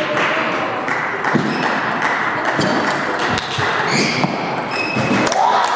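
Table tennis balls clicking irregularly off tables and bats from several tables at once, over the steady din of a busy sports hall.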